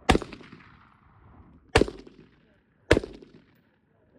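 Three single gunshots, a second or two apart, each dying away in a short echo.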